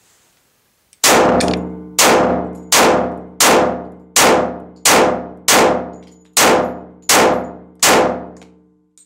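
Compensated Glock 24C pistol in .40 S&W firing about ten shots in quick succession, roughly one every 0.7 seconds. Each shot leaves a long ringing echo in the enclosed concrete range.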